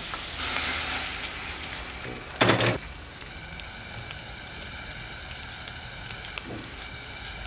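Mixed mushrooms sizzling in a frying pan on a gas hob as white wine reduces, with a brief loud clatter about two and a half seconds in; the sizzle is quieter afterwards.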